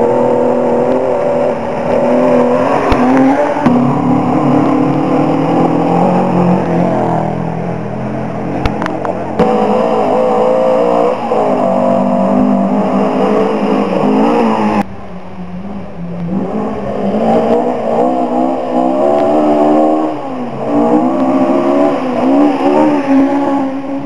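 Historic rally cars driven flat out one after another, engines revving hard and changing pitch as they accelerate through the gears. The engine sound breaks off and changes abruptly several times between cars.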